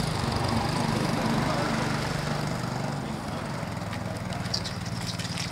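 A mini trail bike's small engine running steadily as the bike rides away, its note growing quieter over the second half.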